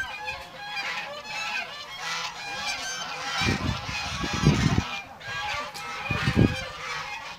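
Domestic geese honking and chattering, many overlapping calls, with a few low rumbles about three and a half and six seconds in.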